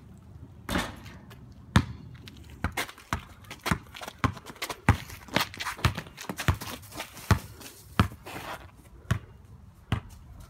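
A basketball dribbled on concrete: about a dozen sharp, slapping bounces at an irregular pace, with sneakers scuffing on the pavement between them.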